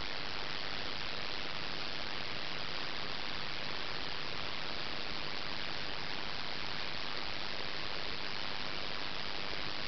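Steady, even hiss of background noise, with no knocks, taps or other sounds.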